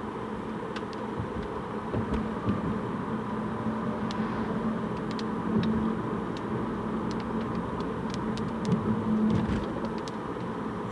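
Car running on the road, heard from inside the cabin: a steady hum of engine and tyres, with scattered light ticks.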